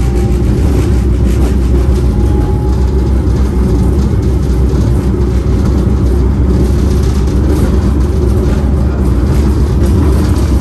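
Brookville Liberty electric streetcar running at a steady speed, heard from inside the car: a loud, even low rumble.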